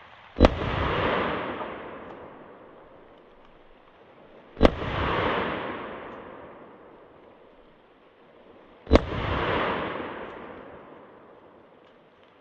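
Three shots from a .327 Federal Magnum revolver, about four seconds apart. Each is a sharp crack followed by an echo that dies away over a couple of seconds.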